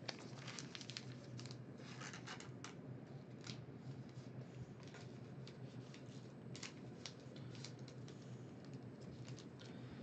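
Trading cards being handled at a table: many short, light scrapes, rustles and clicks of card stock and plastic sleeves.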